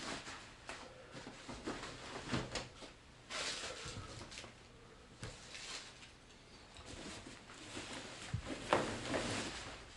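Faint handling noises: the white protective wrap around a monitor panel rustling, with scattered light knocks and clicks as the panel is moved on the desk. A longer rustle comes about three seconds in, and the loudest knock and rustle near the end.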